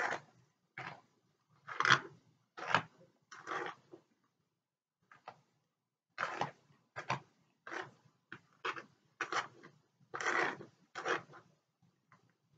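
A small hairbrush being drawn through hair in short strokes, about one or two a second, with a pause of a couple of seconds partway through.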